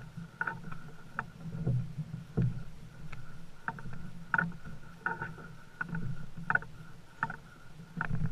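Walking along a forest portage trail with a canoe carried overhead: footsteps and the knocking and creaking of the canoe and pack, a sharp knock about every half second to a second, over a faint steady hum.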